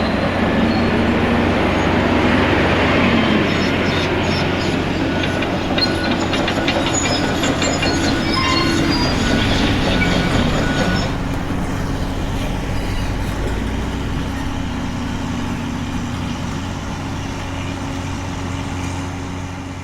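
A heavy diesel engine running steadily under loud grinding and scraping, with many short high-pitched metallic squeals in the first half that ease off about eleven seconds in.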